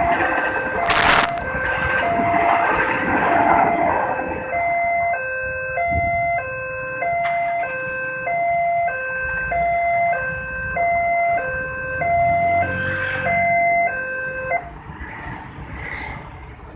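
Railway level-crossing warning alarm sounding a repeating two-tone electronic chime, high and low alternating about one and a half times a second, then cutting off near the end as the crossing clears. For the first few seconds a rail vehicle rumbles past over it, with one sharp bang about a second in.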